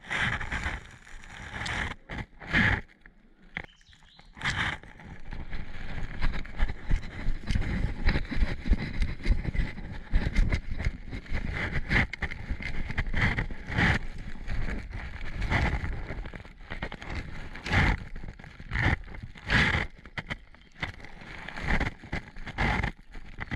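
Footsteps crunching on a gravel and dirt woodland path, with rustling and handling rumble from a body-worn action camera. The steps come irregularly, about one a second.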